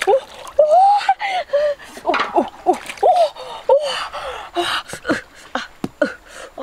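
A woman's short, wordless exclamations and gasps of surprise, a rapid string of 'oh'-like calls rising and falling in pitch, on finding eggs under a goose.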